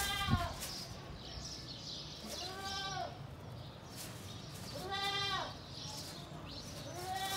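An animal calling four times, about every two and a half seconds. Each call is a short pitched cry of about half a second that rises and then falls in pitch.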